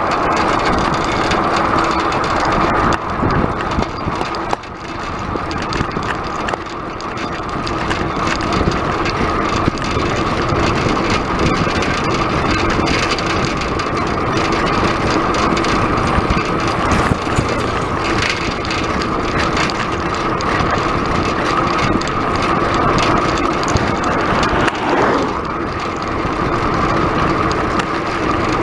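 Steady rushing road noise of a bicycle rolling fast downhill on asphalt: tyres on the road and wind on the bike-mounted microphone.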